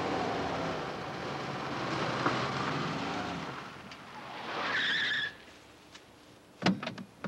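Car engines running as the cars drive up a dirt mountain road, with a brief tyre squeal about five seconds in. It then drops quiet, broken by two sharp sounds near the end.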